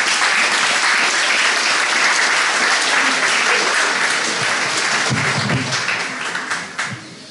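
Audience applauding at the end of a comic monologue, dense clapping that thins out and fades in the last second or so.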